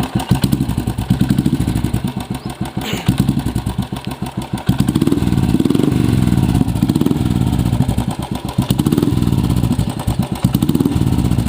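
Royal Enfield Classic 350 single-cylinder engine running through an Indori silencer, a glass-wool-packed legal silencer, on an empty bend pipe. It runs with a steady, punchy, bassy thump and is revved up several times in the second half.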